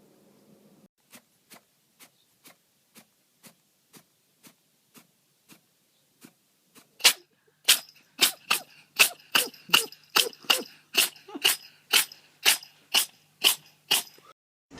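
An animal sneezing over and over in a long fit of short, even sneezes. They come about two a second and faint at first, then louder and quicker from about seven seconds in.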